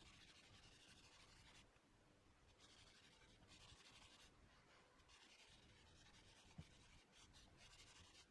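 Near silence, with faint on-and-off scratching or rubbing.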